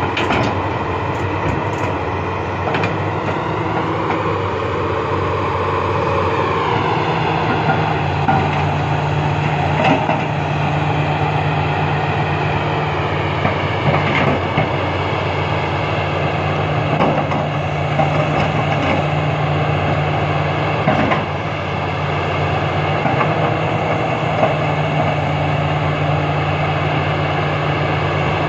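XCMG XE370CA hydraulic excavator's diesel engine running steadily under load while the boom and bucket work. Its pitch dips and climbs back a few seconds in, and a few sharp knocks come at intervals.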